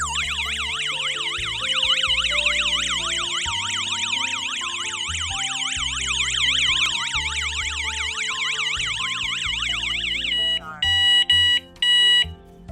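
Electronic alarm siren of a 433 MHz wireless home-alarm strobe siren wailing in fast up-and-down sweeps, several a second. About ten and a half seconds in it cuts off and gives a few short steady beeps.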